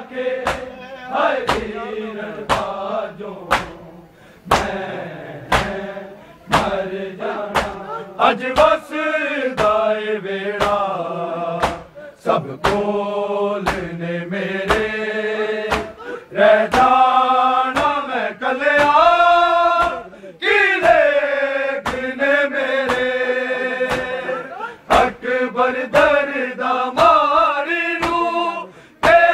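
Men chanting a noha, a Shia mourning lament, in chorus, with the steady slaps of hands on bare chests (matam) keeping time at roughly one and a half strikes a second.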